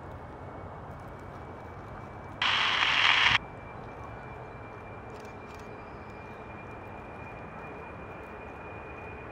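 Boeing 747-400 freighter with four General Electric CF6-80C2B5F turbofans climbing out after takeoff: a steady jet rumble with a thin, steady high whine. About two and a half seconds in, a loud burst of hiss starts and stops abruptly about a second later.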